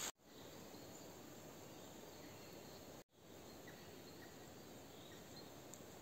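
Near silence: faint forest ambience with a few faint insect sounds, briefly cut off about halfway through.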